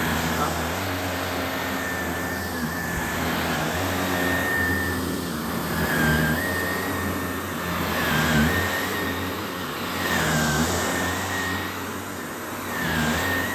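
Vacuum cleaner running steadily on heavily soiled carpet, its high motor whine dipping briefly about every two seconds as the head is pushed and pulled in strokes.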